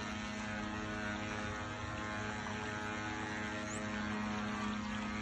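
Small electric motor of an RC amphibious model truck running steadily, a constant hum with an even stack of tones.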